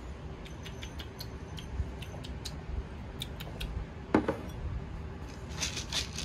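Light clicks and taps of ceramic dishes being handled on a wooden table, with one louder knock about four seconds in as a bowl of cat kibble is set down, and a quick cluster of taps near the end.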